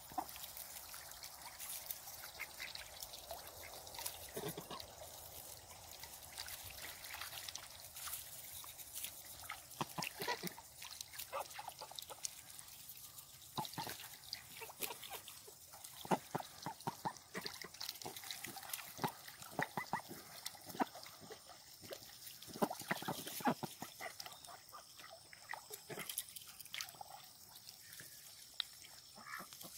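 Pekin ducks and Danish geese dabbling with their bills in shallow water at the pond's edge: quick wet slurping, dribbling and splashing clicks that come thicker from about a third of the way in.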